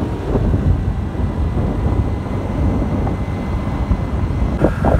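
Steady wind and road noise from a moving vehicle, wind buffeting the microphone.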